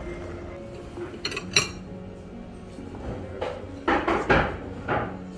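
Plates, bowls and cutlery clinking and clattering at a self-service buffet, with a few sharp clinks about a second and a half in and louder clatter near the end.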